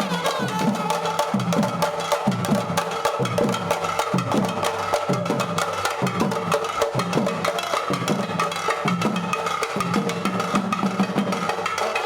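Music with fast, steady drumming and held melodic tones above it.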